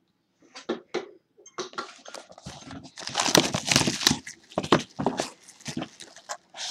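Cellophane shrink-wrap being torn and crinkled off a sealed trading-card box by hand, a run of irregular crackles that thickens about three seconds in.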